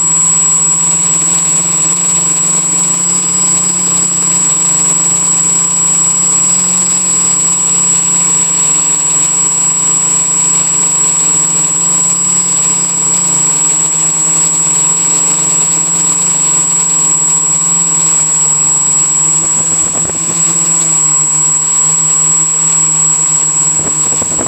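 Quadcopter's electric motors and propellers running steadily in flight, picked up close by a camera mounted on the frame: a loud, even drone with a thin high whine over it.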